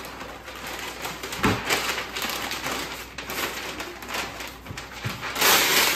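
Pink butcher paper rustling and crinkling as it is folded and tucked around a brisket, with a louder burst of rustling near the end.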